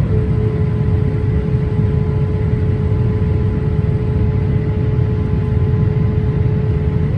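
Low rumble of a JAL Boeing 787 with GE engines, with a mechanical whine over it. The whine holds one steady mid-pitched note after just having dropped, then climbs sharply back up near the end.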